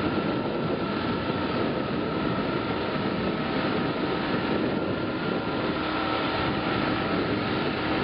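Tractor-mounted ditch cleaner running steadily, its rotor flinging mud and water out of the ditch: an even mechanical noise with a steady whine above it.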